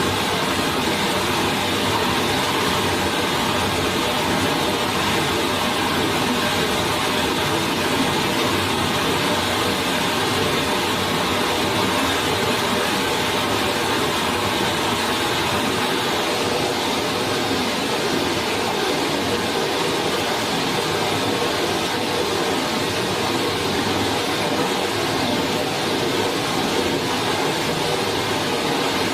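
Flowing water of a forest stream, a steady rushing noise that doesn't change.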